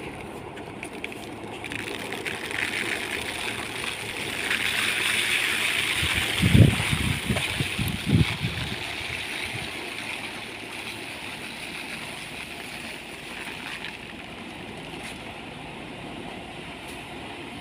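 Winnowing fan of a solar-powered thresher-winnower blowing steadily while threshed paddy is poured through its air stream onto a plastic tarp, a hiss that grows louder and then fades back in the first half. A few low thuds come just after the middle.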